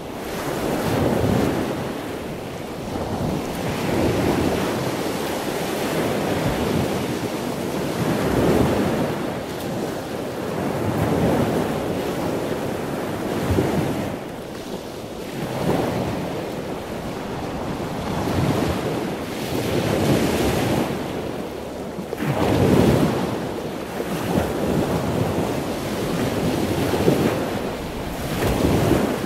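Sea waves washing in, a rushing noise that swells and fades every two to three seconds, with a wind-like hiss.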